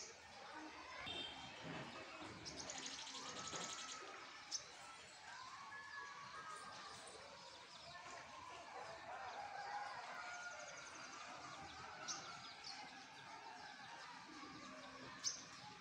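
Faint calls of several small birds: overlapping chirps and twitters, a rapid buzzy trill about three seconds in and again about ten seconds in, and a few sharp single chirps.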